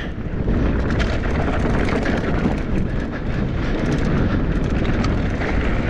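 Wind buffeting a GoPro's microphone on a fast mountain bike descent, over the noise of knobby tyres rolling on a dirt and rock trail, with many short clicks and rattles from the bike and loose stones.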